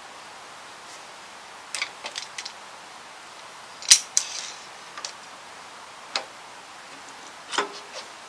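Scattered sharp clicks and knocks of hand tools on metal while working a rusted, broken-off bolt: a short cluster about two seconds in, the loudest click about four seconds in, then single clicks spaced a second or so apart.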